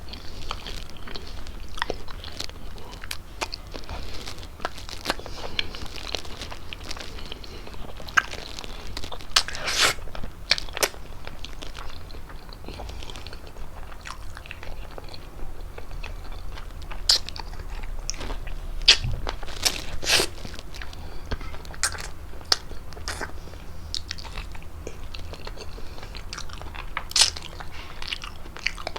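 Close-miked chewing of fettuccine with chicken: a steady run of wet mouth clicks and smacks, with louder clusters about a third of the way in and again past the middle.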